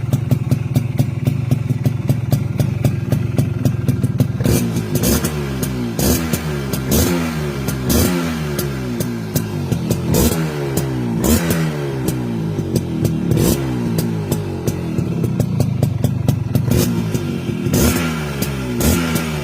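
Suzuki AX100's two-stroke single-cylinder engine running at a steady idle. From about four seconds in it is blipped over and over, roughly once a second, each rev jumping up and falling back.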